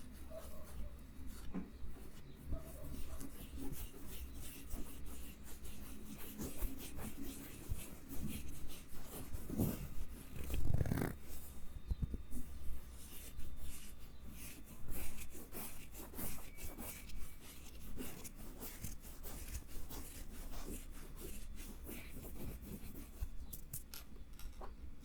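Close-miked scratching and rubbing with many small clicks and taps, an ASMR trigger sound, with two louder low rubs about ten seconds in.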